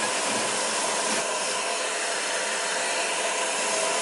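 A lathe spinning a small sanding disc, with a wooden tobacco pipe piece held against it: a steady sanding hiss over a faint motor whine.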